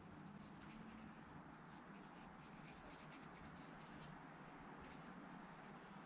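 Faint, irregular scratching of a paintbrush's bristles stroking oil paint onto linen canvas, a run of short strokes.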